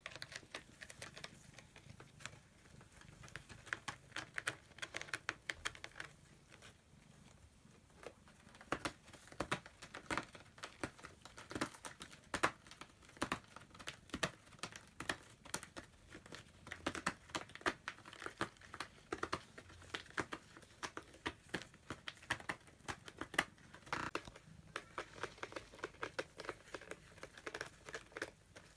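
Kittens' claws scratching and scrabbling on a corrugated-cardboard scratcher as they wrestle: irregular scratchy rustles and clicks, sparse at first and busier after about eight seconds.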